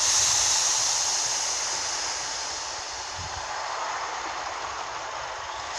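Class 153 diesel railcar running at the station: a steady rushing rail noise, loudest at first and easing slightly.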